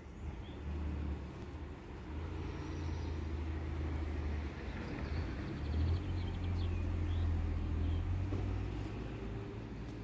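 A steady low rumble, swelling toward the middle and easing near the end, with a few faint high chirps about halfway through.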